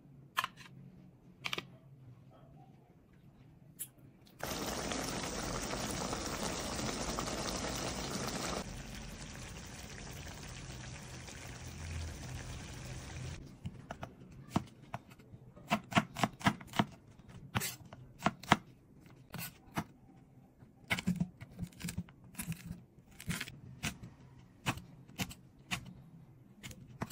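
Liquid pouring or running for about nine seconds, loudest for the first four. Then comes a long run of sharp clicks and knocks, like kitchen utensils and dishes being handled.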